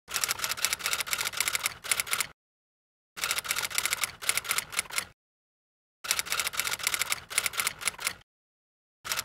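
Typewriter sound effect: three runs of rapid key clicks, each about two seconds long, separated by dead silence, with a fourth run starting at the very end. It is the clatter laid under lines of on-screen text appearing one by one.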